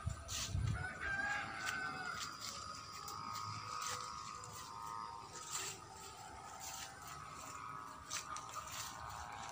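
A rooster crowing faintly, drawn out with a rising call early on, over low bumps and rustle from the phone being handled in the first second.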